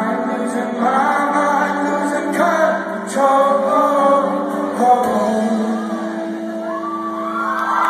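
Rock band playing live, with sung vocal lines over sustained held chords.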